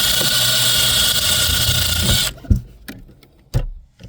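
Small Milwaukee cordless power tool running steadily with a whine while cleaning corroded fuse connectors. It cuts off suddenly a little past halfway, followed by two knocks as it is handled.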